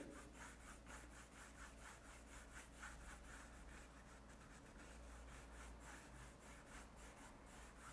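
Faint scratchy rubbing of a flat paintbrush scrubbed back and forth in crisscross strokes over a stretched canvas, blending wet oil paint. The strokes come in a quick, even rhythm.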